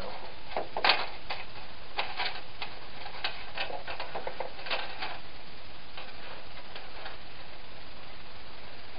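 Small metal snap swivels clicking and ticking as they are handled and tied onto a cord: a quick irregular run of light clicks, the loudest about a second in, thinning out after about five seconds, over a steady hiss.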